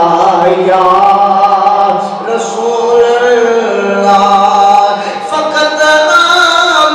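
A man's voice chanting in long, held melodic notes, gliding slowly between pitches.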